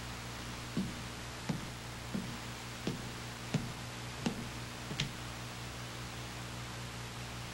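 Footsteps of hard-soled shoes on a floor: seven even steps, a little faster than one a second, which stop after about five seconds. Underneath is a steady soundtrack hiss and a low hum.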